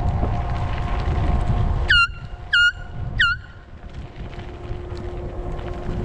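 Bicycle horn honked three times in quick succession, each a short toot that dips in pitch at the start and then holds steady. Wind rushes on the microphone underneath.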